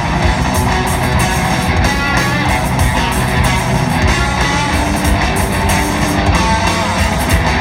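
Live rock band playing loudly, with electric guitars prominent over bass and drums. The sound is dense and unbroken.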